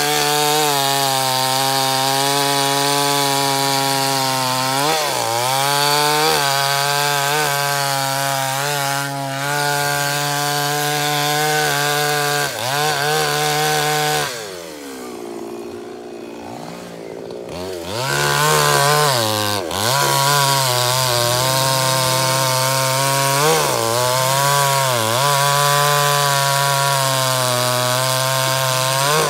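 Two-stroke petrol chainsaw cutting through a thick tree trunk at full throttle, its engine note dipping briefly several times as the chain bogs down in the wood. About halfway through, the throttle is let off and it runs lower and quieter for a few seconds, then revs back up and goes on cutting.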